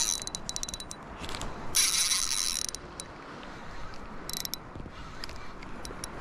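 Fishing reel clicking in quick ratcheting runs, the loudest about two seconds in and a shorter one near the middle.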